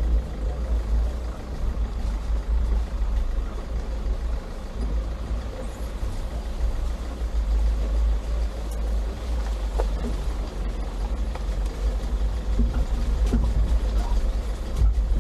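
Toyota Fortuner driving on a rough off-road trail: a low, steady rumble of engine and drivetrain.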